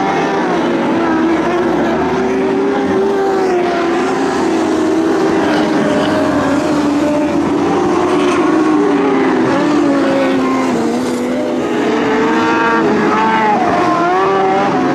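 Several Lightning Sprint cars racing on a dirt oval, their engines running hard at high revs, the overlapping engine notes rising and falling as the cars pass.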